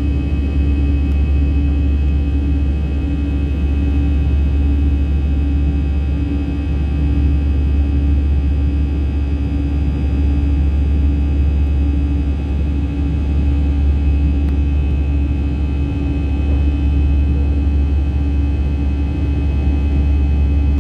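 Airliner engine noise heard inside the passenger cabin in flight: a steady low rumble with a constant droning hum and a slightly wavering tone above it.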